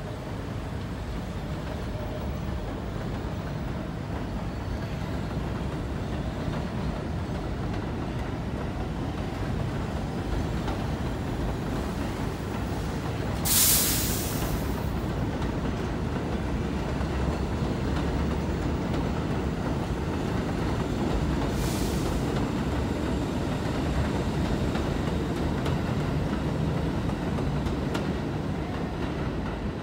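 New York City subway train running along an elevated steel track past the platform, a steady low rumble that builds slightly as it goes by. About halfway through a loud, sharp hiss lasts about a second, and a shorter, fainter one follows near the end.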